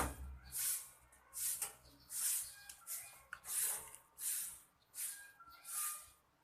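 Rhythmic short scraping strokes, about one and a half a second, from hand work on the washing machine's wiring as it is stripped and spliced.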